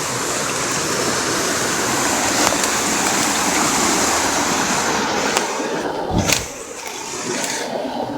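Steady rush of flowing water from a stream or waterfall that thins a little about five seconds in, with a single sharp knock about six seconds in.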